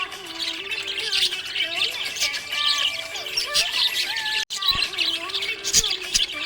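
Budgerigar chirping and warbling continuously in quick, rapid chirps over gliding tones. The sound cuts out for a split second about two-thirds of the way through, then resumes.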